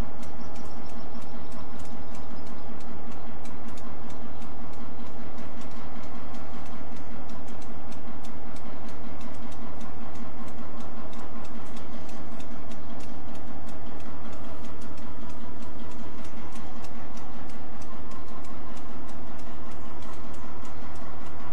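Diesel-electric locomotive engine running at a steady low drone as it hauls a train of boxcars slowly through a yard during shunting, with rapid clicking and rattling from the wheels on the rails throughout.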